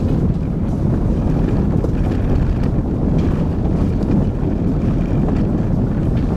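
Car driving fast along a gravel road: a steady low rumble of engine and tyres on loose gravel, largely covered by wind buffeting the microphone, with faint scattered ticks of stones.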